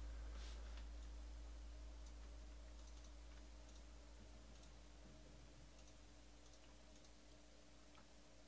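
Near silence with faint, scattered clicks of someone working a computer, typing and clicking, over a low hum that slowly fades.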